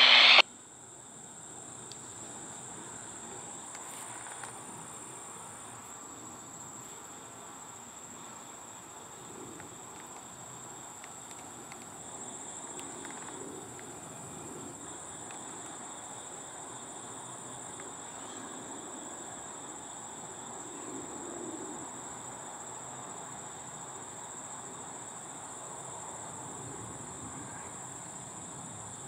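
Insects trilling steadily in one high, unbroken tone, over a faint low background hum.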